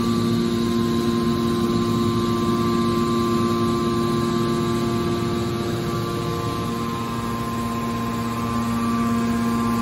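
Hydraulic pump unit of a metal baling press running, its electric motor and pump giving a steady hum made of several held tones.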